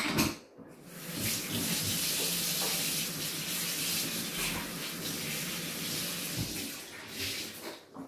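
Kitchen tap running into a stainless-steel sink, turned on about a second in and shut off a little over a second before the end, with a few short knocks around it.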